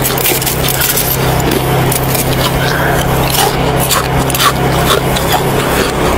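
Crunching and chewing of a mouthful of packed snow, close to the microphone, as a run of short crackly crunches over a steady low hum.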